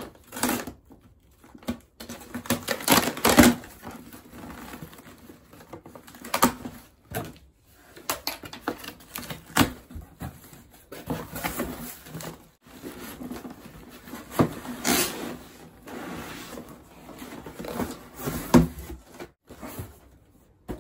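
A cardboard shipping box being opened by hand: packing tape slit and torn, flaps pulled back and an inner carton slid out. The result is a run of irregular cardboard scrapes, rips and rustles, with a few louder rips every few seconds.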